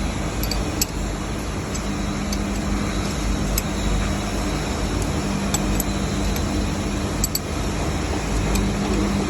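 Steady hum of running industrial machinery with a constant low drone, and a few faint sharp clicks scattered through it.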